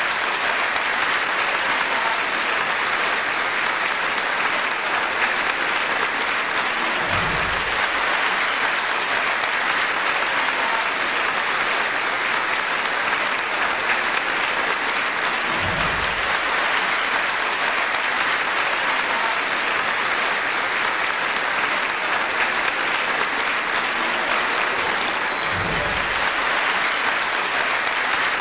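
Large audience applauding, a dense, steady clapping. Three dull low thumps stand out, about nine seconds apart.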